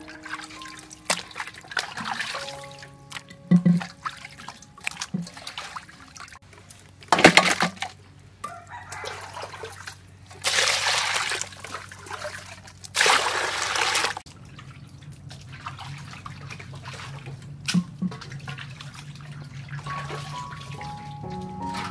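Water splashing and sloshing as raw fish pieces are rinsed by hand in an aluminium basin, in two bursts of a second or two past the middle, with a few sharp knocks earlier. Soft background music plays underneath.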